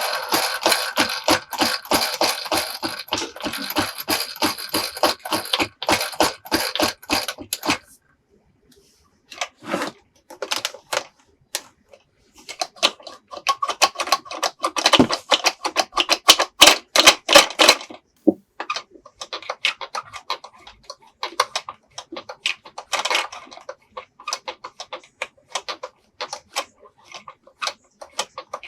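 Rapid clicking and clattering of small plastic toy pieces being handled, at first about four clicks a second under a steady electronic tone that stops about eight seconds in, then irregular bursts of clicks.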